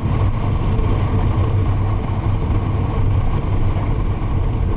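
Royal Enfield Bullet 500's single-cylinder engine running steadily on the move, a deep low hum under an even rush of wind and road noise.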